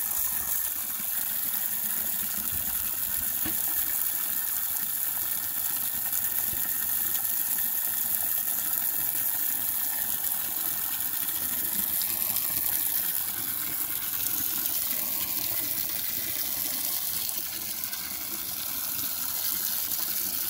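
Garden hose stream splashing steadily into the pooled water in a plastic septic distribution box. This is a flow test, the water draining from the box out to the leach-field pipes.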